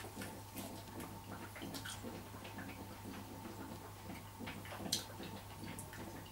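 A person chewing a bite of roast lamb rib, with faint irregular mouth clicks and a sharper click about five seconds in, over a steady low hum.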